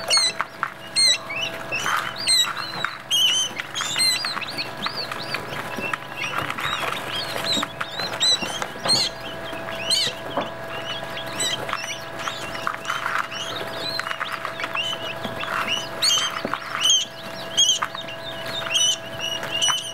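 Several quail chicks peeping, a constant stream of short, high chirps overlapping one another, over a steady low hum.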